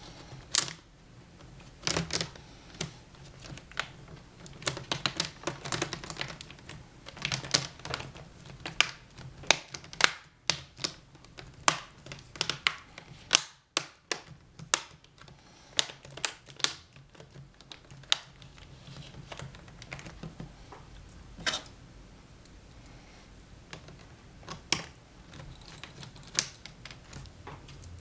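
Plastic laptop screen bezel being pressed and snapped back into place around the display: irregular sharp plastic clicks and taps, thickest in the first two-thirds and thinning out toward the end.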